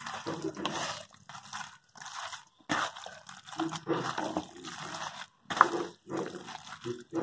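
Wet squelching of a hand kneading raw minced mutton with a ground masala paste in a plastic bowl, in irregular bursts.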